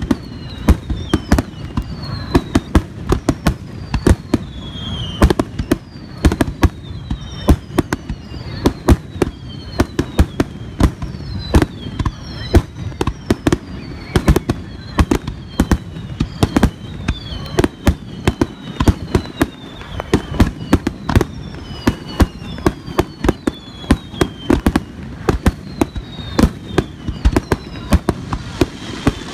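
Aerial firework shells bursting in a rapid barrage, with sharp bangs several times a second. Short high whistles slide down in pitch between the bangs.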